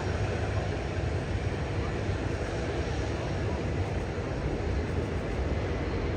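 Boeing 747 freighter's jet engines, a steady roar with a deep rumble underneath.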